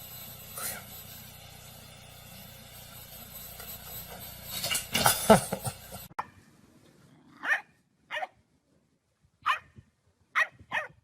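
A dog barking in short single barks, six of them spaced about a second apart in the second half. Before that there is a steady low hum with a louder burst of noise about five seconds in.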